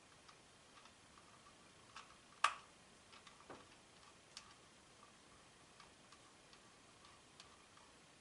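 Faint, irregular light clicks of a small T5 Torx screwdriver tip working a tiny screw in the plastic battery compartment of an Arlo Essential camera, the loudest click about two and a half seconds in.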